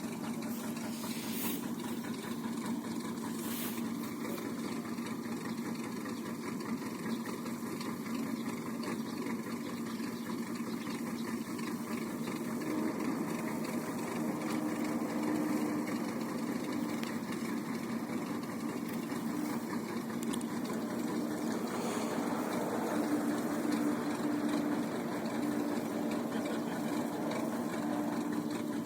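Boat engine idling steadily as it warms up. From about halfway a second, slightly higher engine note comes and goes, and the overall sound gets a little louder.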